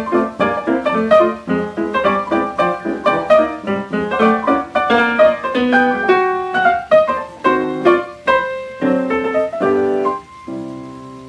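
Jazz piano played from a 1941 78 rpm record, a quick run of notes in the closing bars ending about ten seconds in on a held final chord that fades away.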